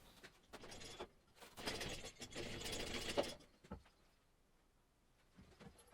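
Rapid mechanical clicking and rattling, like a ratchet or chain mechanism being worked, in two spells with a short break. It ends in a sharp knock about three seconds in and a dull thud just after, then near quiet.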